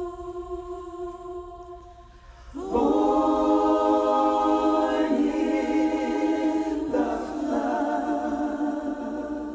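A small group of singers holding chords in close harmony. One chord fades out, a new one comes in sharply with a slight upward slide about two and a half seconds in, and it shifts to new chords twice more.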